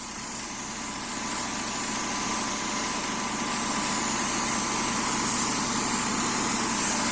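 Compressed-air blow gun hissing steadily as it blasts sand out of a fossil footprint in rock, over the steady drone of a running engine. It swells up over the first couple of seconds.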